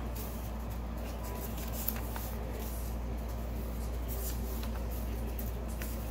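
Sheets of drawing paper rustling and sliding as they are leafed through in a stack, with brief scattered rustles over a steady low hum.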